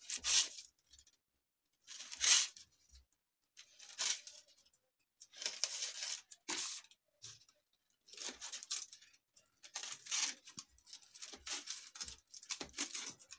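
Kitchen knife slicing a sesame-coated til-mawa roll into pieces on crinkled aluminium foil. It makes a series of short scraping, crackling strokes, one per slice, as the blade cuts through the sesame crust and presses into the foil.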